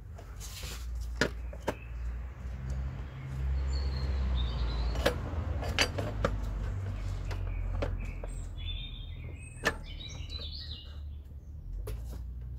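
A few sharp metallic clicks and clinks from hand work on an engine's timing chain and cam gears, over a low steady background rumble. Birds chirp in short bursts near the end.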